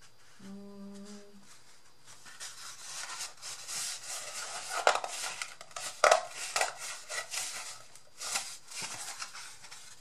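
A short hummed note near the start. Then cardboard is handled and bent, rustling and crackling with several sharp cracks, loudest around the middle.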